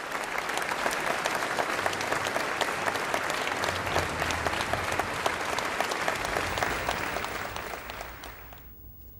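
Crowd applauding, dense steady clapping that fades out near the end.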